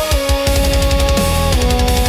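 Instrumental music: long held lead notes stepping down in pitch over fast, heavy low drumming.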